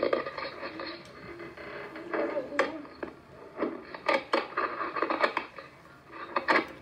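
Handling noise from a small camera being moved and set down: irregular knocks, taps and rubbing against the lens housing, heard through a laptop's speakers.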